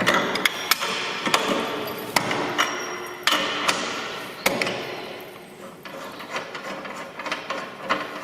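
Metal tool clanking and clicking against a large axle bolt nut as it is loosened and worked off with a 46mm socket or spanner: irregular sharp knocks, loudest in the first few seconds and thinning out toward the end.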